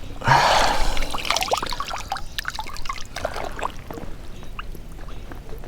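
Creek water splashing briefly, then trickling and dripping in scattered small drops.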